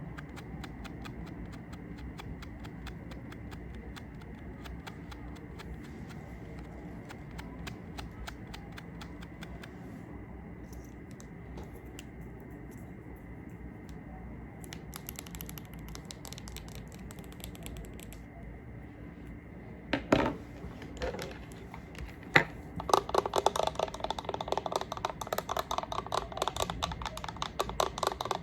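Close-miked ASMR handling of makeup products: a long run of faint, quick clicks, then a few louder knocks about twenty seconds in and dense, rapid tapping near the end.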